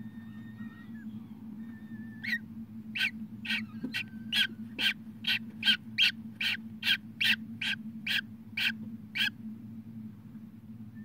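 Newly hatched peregrine falcon chick peeping: a run of about sixteen short, sharp cheeps, roughly two a second, starting a couple of seconds in and stopping near the end, over a steady low hum.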